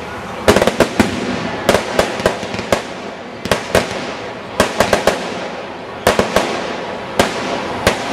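Fireworks going off: a fast, irregular run of sharp bangs and pops, several coming in quick pairs, over a steady rushing noise.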